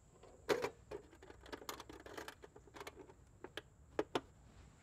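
Light clicks and knocks of a stainless steel transformer box being handled as its hinged cover is swung shut and pressed closed, with a louder knock about half a second in and two sharp clicks near the end.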